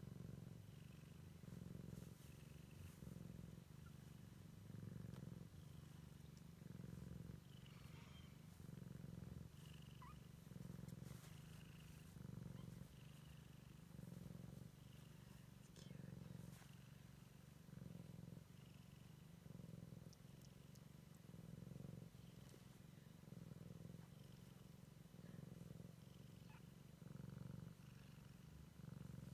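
Cat purring softly and steadily, the purr swelling and fading about once a second with each breath in and out.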